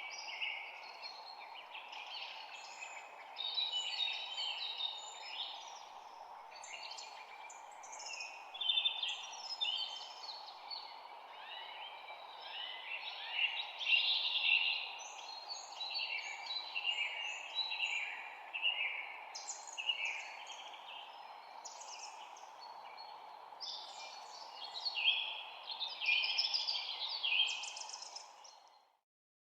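Springtime birdsong: a busy run of overlapping chirps and trilled phrases over a steady background noise, fading out just before the end.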